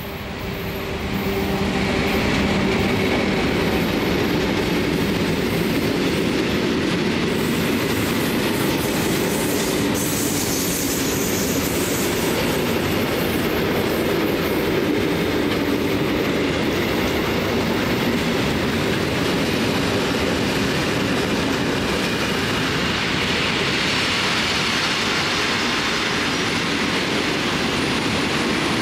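Freight train of covered hood wagons rolling past at close range, behind an NS class 1600 electric locomotive. The steady rumble and clatter of the wheels on the rails swells over the first couple of seconds, then holds as the wagons keep passing.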